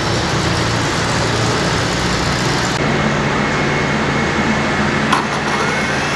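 Gas turbine of a twin-turbine garden pulling tractor starting up: a steady loud whoosh with a low hum, joined about halfway by a thin steady high tone, then a click and a whine that begins to rise at the very end as the turbine spools up.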